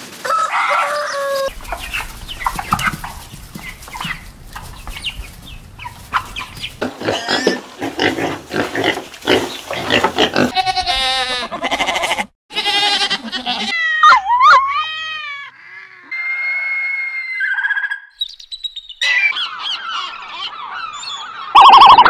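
A run of different animal calls, cut one after another with abrupt changes between them. A little past the middle come calls that rise and fall in pitch.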